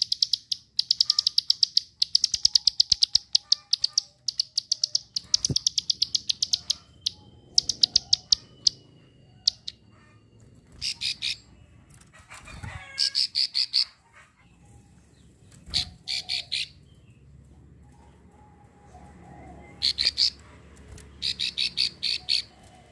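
Female prinia giving its rapid clicking call, fast runs of sharp 'klik' notes in short bursts. The bursts come one after another at first, then thin out to a few separate bursts with pauses between.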